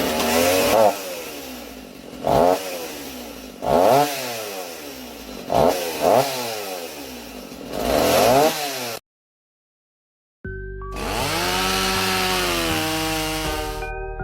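Chainsaw engine revving up and down over and over, about six revs, then cutting off. After a short silence, a different sound begins with several steady and gliding tones.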